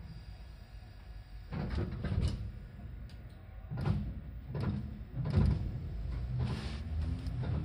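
Seibu 4000 series train standing at a station: a run of thuds and knocks from the sliding doors closing. Near the end the traction motors start with a rising tone as the train pulls away.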